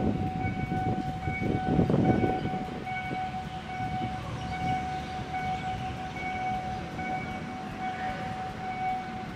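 Railway level-crossing warning signal: a steady electronic tone with higher tones pulsing on and off in an even beat. A low rumbling noise is loudest in the first two seconds.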